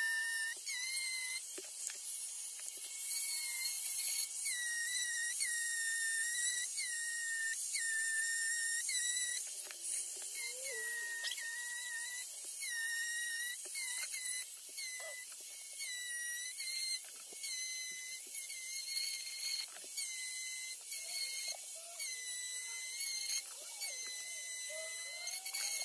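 High-speed rotary carving tool whining on wood, its pitch dipping and recovering about once a second as the bit bites and is eased off.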